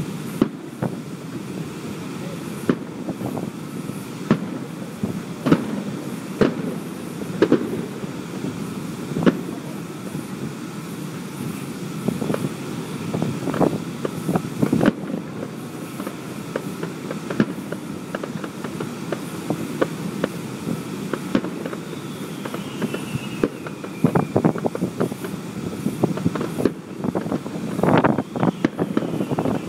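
Fireworks going off repeatedly through a phone microphone: a string of sharp bangs, heaviest near the end, over a steady low rumble. A high falling whistle is heard about three quarters of the way through.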